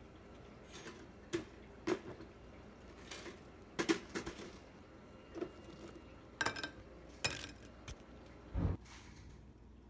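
Toasted waffles being handled at a toaster and set on a plate: a string of light clicks and knocks from the toaster slots and the plate, with a duller thump near the end.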